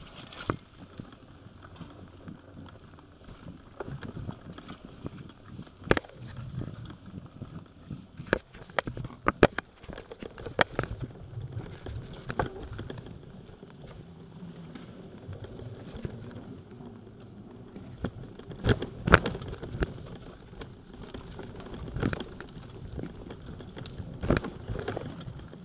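Bicycle rolling along a rough towpath inside a brick tunnel: a low rumble of tyres on grit, broken by irregular sharp knocks and rattles as it jolts over the uneven surface.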